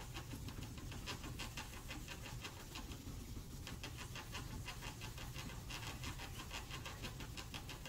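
1500-grit wet sandpaper pressed under the palm, rubbed in quick back-and-forth strokes over the wet clear coat of a painted steel motorcycle fuel tank, a faint rhythmic rasping with a short break about three seconds in. It is cutting down the orange peel in day-old, not fully cured paint before buffing.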